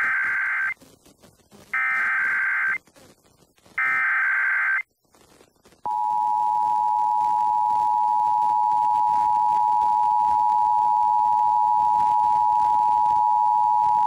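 Emergency Alert System test broadcast over FM radio played on a stereo: three short bursts of digital SAME header data, each about a second long and two seconds apart, then the two-tone EAS attention signal (853 and 960 Hz) held steady from about six seconds in.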